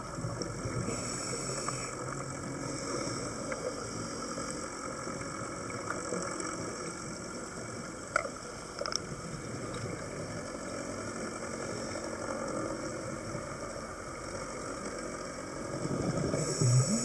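Steady motor drone with a few faint clicks about eight to nine seconds in.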